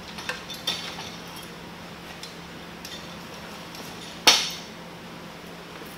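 Steel scissor frame of a pop-up canopy tent being pulled open, its trusses and legs clinking and rattling against each other. One much louder metal clank about four seconds in rings briefly.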